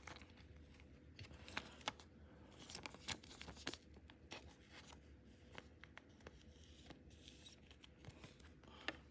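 Faint plastic rustling and small scrapes and ticks as a trading card is slid into a clear plastic penny sleeve.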